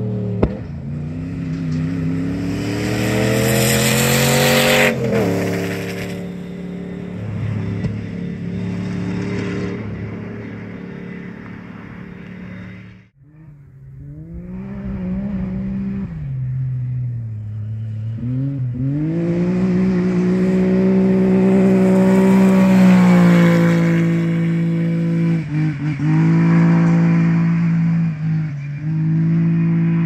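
Cross-country rally cars at full throttle on a gravel stage. One engine climbs in pitch through the gears and drops sharply on a shift, then fades away. After a sudden break in the sound about thirteen seconds in, a second car approaches with rising revs and lifts off the throttle briefly a few times near the end.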